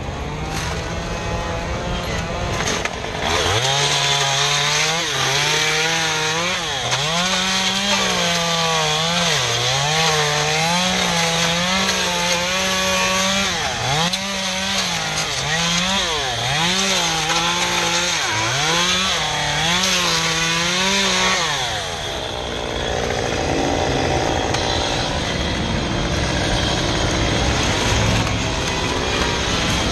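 Stihl MS 193 T top-handle two-stroke chainsaw revving and cutting palm fronds, its pitch sagging each time the chain bites and climbing back, again and again. About two-thirds of the way through the revving stops and a steady, rougher sound with no clear pitch continues.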